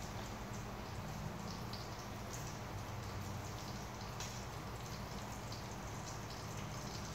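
Meat frying in oil in a wok on a portable gas stove: a steady sizzle with scattered crackles and pops, over a low steady hum.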